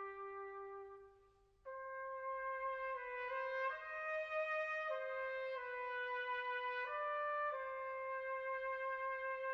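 Background music: a slow brass melody, trumpet-like, played in long held notes. The first held note fades out at about a second and a half, and after a brief pause a new phrase of notes begins, stepping up and down.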